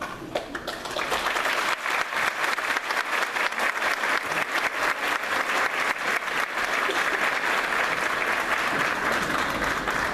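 Large audience applauding, the clapping swelling to full strength about a second in and holding steady.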